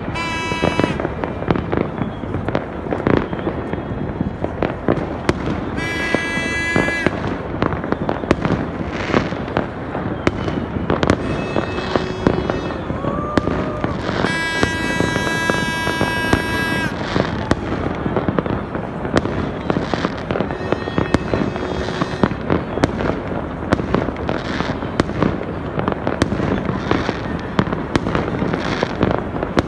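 Many New Year's fireworks going off at once: continuous bangs, pops and crackling. Long steady high tones sound briefly near the start, about six seconds in, and for about three seconds from fourteen seconds in.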